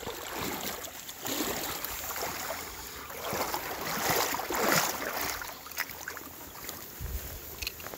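Shallow creek water splashing and sloshing in irregular swells as someone wades through it, the loudest splash about two-thirds through.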